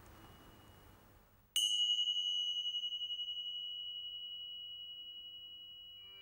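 A pair of tingsha cymbals struck together once, about a second and a half in, giving one high, clear ring that wavers as it slowly fades away over the next four seconds.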